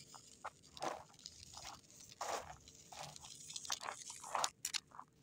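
A stick scratching lines into dry, cracked soil: a series of short, uneven scrapes, the loudest about two and a half and four and a half seconds in.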